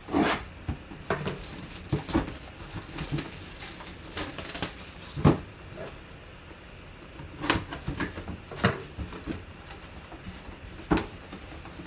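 Shrink wrap being cut with a folding knife and peeled off a cardboard box, then the white cardboard inner box opened: crinkling plastic, cardboard scraping and scattered knocks, with one sharp knock about five seconds in.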